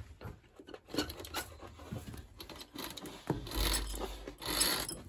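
A fabric curtain being drawn back from a window, the cloth rustling and rubbing as it slides along its rail, with a few light knocks, louder in the second half.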